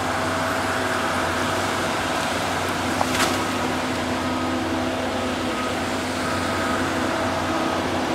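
Cat 573C feller buncher's engine and hydraulics running steadily, with a whine that comes and goes and a single sharp crack about three seconds in.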